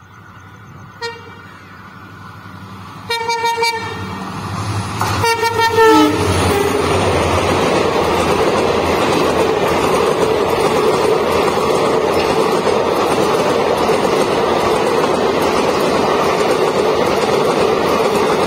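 WDP4D diesel locomotive sounding its horn: a short toot, then two longer blasts, the last one dropping in pitch as the locomotive passes. It is followed by the steady loud noise of the express's coaches rolling past at speed without stopping.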